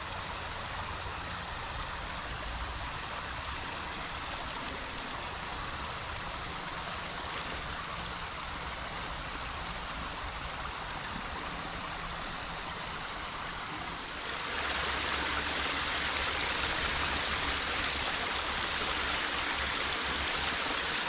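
Water spilling over a beaver dam, a steady rushing trickle that grows louder about 14 seconds in.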